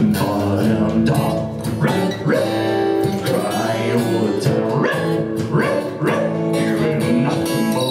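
Live acoustic guitar strummed in a steady rhythm, with a man singing along into a microphone.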